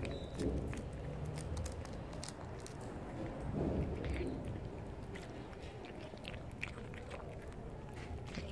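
Stray cat chewing canned wet food close up: rapid wet smacking and clicking of its jaws and tongue, with a brief louder low sound about three and a half seconds in.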